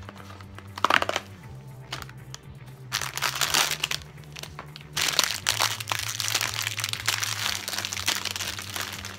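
Snack packaging being opened by hand: a few sharp snaps of a paperboard box about a second in, then the crinkling and tearing of the snack's inner plastic pouch, continuous from about halfway through. Soft background music plays underneath.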